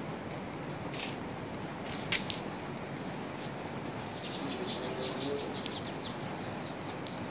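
Steady hiss of rain falling, with a few sharp ticks in the first couple of seconds. From about four to six seconds in, a bird gives a quick run of high chirps.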